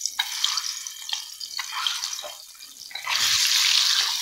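Spice-coated boiled eggs sizzling and crackling in hot mustard oil in a wok, with scattered pops. The sizzle dips briefly a little past two seconds in, then swells loud about three seconds in.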